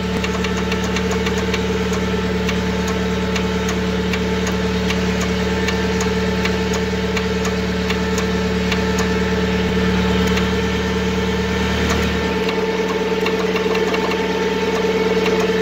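Steady mechanical hum from a 1994 Huskee riding lawn tractor's engine, holding one constant pitch with light ticking throughout. The deepest part of the hum drops away about twelve seconds in.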